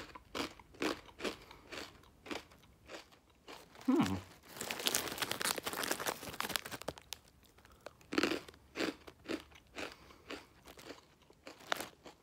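Someone crunching and chewing a dry, crunchy bagel crisp flavoured with Vegemite, close to the microphone, with a run of sharp crunches about twice a second.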